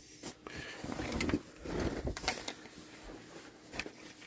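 Soft rustling and handling noises: fabric and small items moved about by hand, with a few light knocks.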